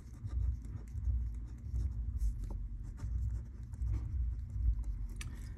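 Handwriting: a pen or marker scratching and tapping out words in short, irregular strokes, over a steady low rumble.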